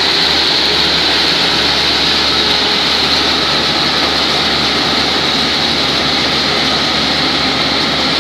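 Engines of two crawler tractors running steadily as they till a flooded rice paddy, a steady, unchanging mechanical noise.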